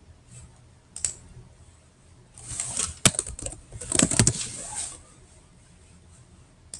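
Keys typed on a computer keyboard in two quick bursts, with a single click about a second in.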